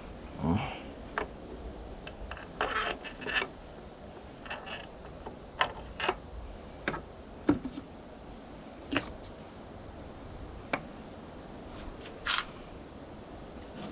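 Steady high-pitched trilling of crickets, with a dozen or so light, scattered clicks and knocks from parts and tools being handled.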